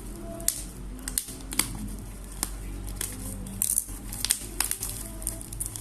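Packaging of a mail-order parcel being handled and opened: irregular sharp clicks and rustles, over a steady low hum.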